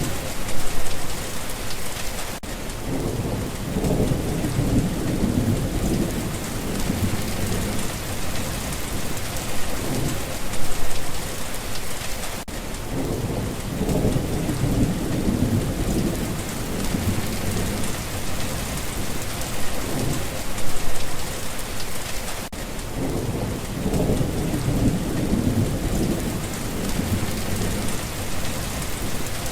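Steady rain with low rolling thunder that swells three times, about ten seconds apart.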